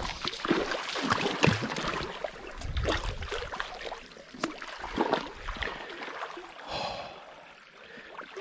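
Creek water running, with irregular knocks, rustles and low thumps from handling close to a body-mounted camera as an angler fights a hooked brown trout on a fly rod.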